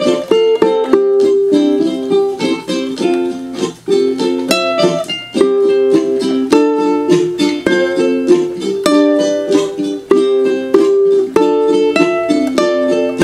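Acoustic ukulele played solo: a steady run of strummed chords with changing notes, no singing.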